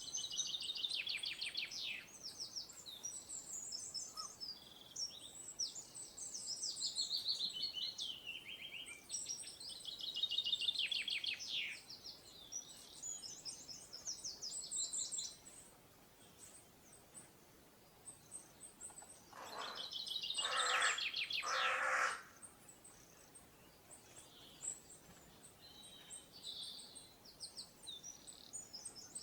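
Birds singing with high, rapid chirps and trills, busiest in the first dozen seconds, then three harsh calls in quick succession a little past the middle, followed by sparse faint chirps.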